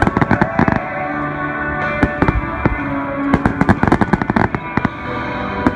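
Aerial fireworks bursting in clusters of rapid sharp pops, thickest in the first second and again from about three to four and a half seconds in, over steady music.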